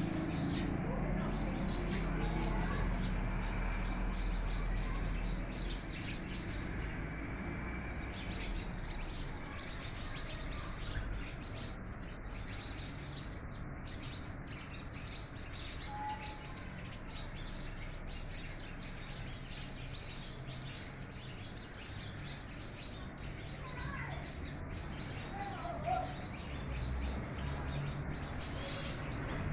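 A flock of house sparrows chirping, many short chirps overlapping continuously, over a steady low background rumble.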